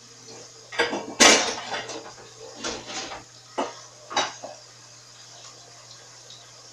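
Dishes and pots clattering as they are handled: a loud clatter about a second in, then a few sharper clinks over the next three seconds.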